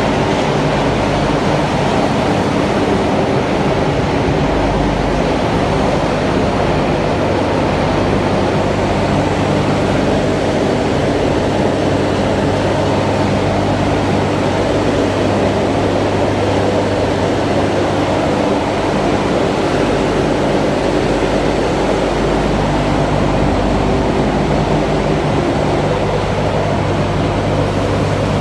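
Calcium carbonate ball mill plant machinery running: a loud, steady, unbroken drone with a low hum underneath.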